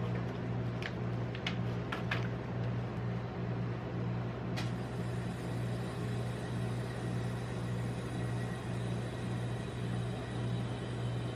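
A steady low machine hum, with a few sharp taps of metal spatulas on the ice cream roll cold plate in the first two seconds.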